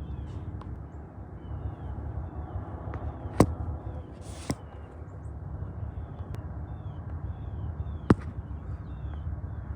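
Two sharp metallic clicks, about five seconds apart, and a short scrape between them, from work on the bus's steering linkage, over a steady low background rumble with small birds chirping.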